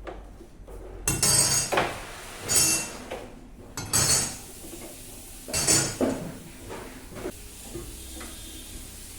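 Pots, dishes and metal utensils clattering and scraping in the kitchen: four loud bursts in the first six seconds, then a few softer clinks.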